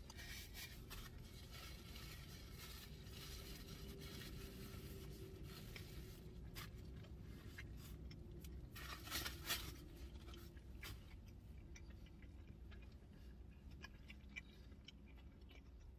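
Faint crackling and scraping of chewing a crunchy folded thin-crust pizza and handling its paper, with a couple of louder crackles about nine seconds in.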